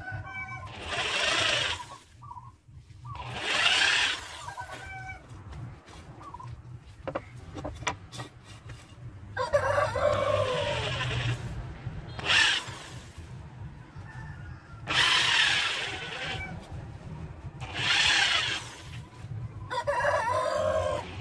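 Hand-held electric drill running in repeated short bursts of a second or two, boring small holes into a wooden frame.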